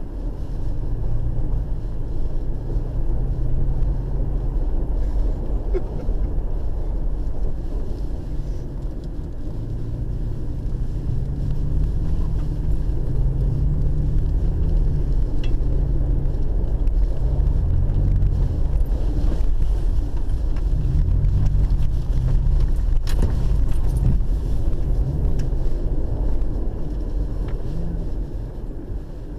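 Vehicle engine and driving noise heard from inside the cabin: a steady low rumble with the engine note rising and falling as the car speeds up and slows, and a couple of sharp clicks late on.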